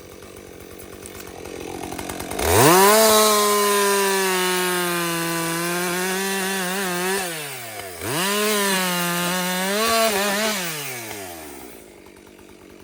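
Chainsaw idling, then revved to full throttle about two seconds in and held while cutting through pine wood. It dips briefly about two-thirds of the way through, runs at full throttle again, then falls back to idle near the end.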